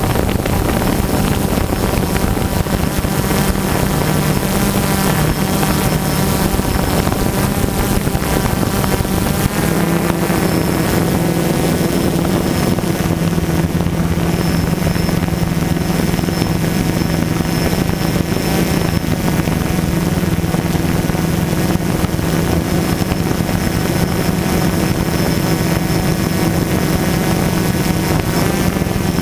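DJI Phantom quadcopter's motors and propellers humming steadily, recorded from the drone itself, with wind rushing over the microphone. The pitch of the hum shifts about ten seconds in as the rotor speed changes, then holds steady.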